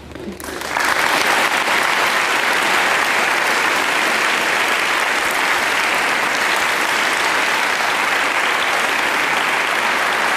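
Studio audience applauding, swelling up within the first second and then holding steady.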